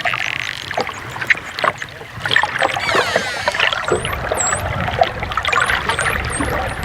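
Dolphins underwater: a steady stream of echolocation clicks, with a whistle gliding in pitch a little before halfway and a run of short, high, upswept chirps in the second half.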